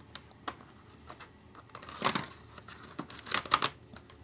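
Plastic clips of a laptop's bottom cover clicking and snapping as it is pried loose. Scattered small clicks, with louder bursts of clicks about two seconds in and again about three and a half seconds in.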